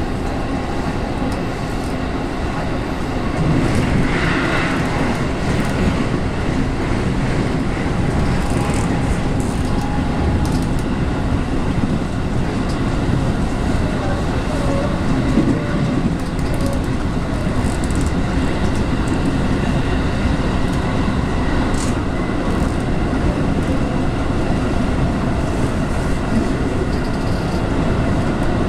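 JR West 221-series electric train heard from inside the car while running between stations: steady rumble of wheels on rail, getting a little louder about four seconds in.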